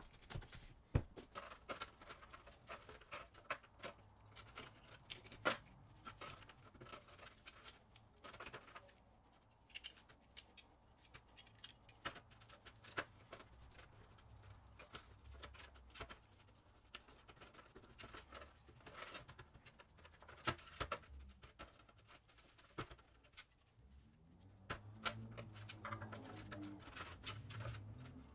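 Wooden stick scraping paint-stripper gel and lifted paint off metal toy-truck parts in an aluminium foil pan: irregular scratching with sharp clicks and taps against the metal. A low hum comes in near the end.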